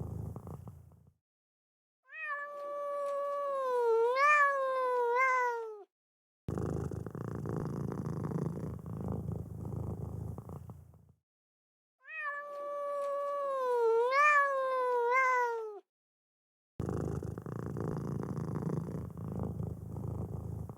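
A domestic cat purring in rough, low stretches of several seconds. Twice the purring gives way to a long, wavering meow of about four seconds that dips and rises and then falls away at the end. The purr-and-meow sequence repeats identically.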